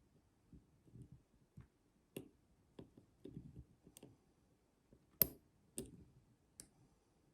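Lock pick and tension wrench working the pins of a Master Lock Pro Series padlock: faint, irregular small clicks and ticks, with a few sharper clicks about five to six and a half seconds in.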